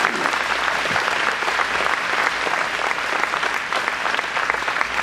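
A large audience applauding, dense, steady clapping in response to an applause line.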